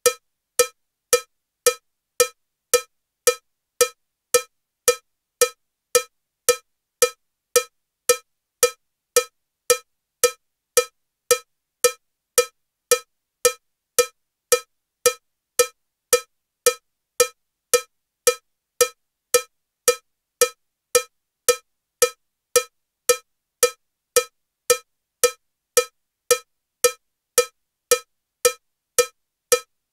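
Metronome with a cowbell sound, clicking steadily at 112 beats per minute, just under two strokes a second. Every stroke is alike: a short, pitched cowbell clank that dies away quickly.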